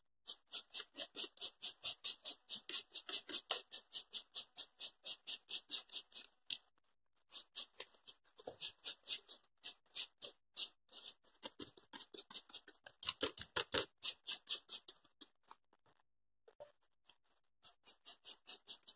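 A small sponge rubbed quickly back and forth, dabbing red paint onto a fringed EVA foam strip on paper. It makes about three or four short scratchy strokes a second, with a brief break about six seconds in. The strokes stop a few seconds before the end, and a few faint ones follow.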